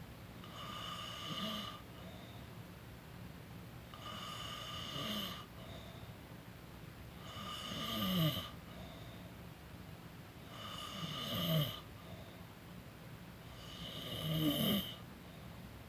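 A person snoring in steady sleep: five snores about three seconds apart, each building in loudness over about a second and then breaking off.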